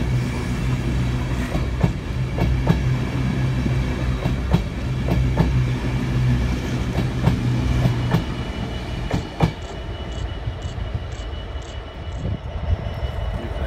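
Mark 4 passenger coaches of an LNER InterCity 225 set running past at close range: a steady low rumble with wheels clacking irregularly over rail joints. About nine seconds in, a last sharp clack comes as the end of the train passes, and the rumble falls away as it draws off.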